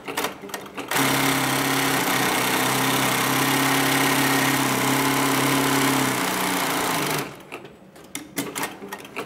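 HIGHTEX 9517UL heavy-duty walking-foot zigzag industrial sewing machine running steadily at high speed for about six seconds, zigzag-stitching through 1 mm upholstery leather, then stopping. A few light clicks come before and after the run.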